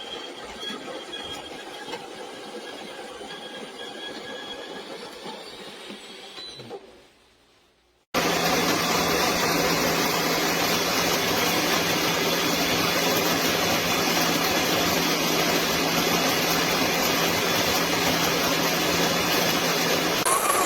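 Electric conical burr coffee grinder running: a quieter whir with a few steady tones fades away, then about eight seconds in a loud, steady grinding noise over a low motor hum starts abruptly and cuts off suddenly near the end.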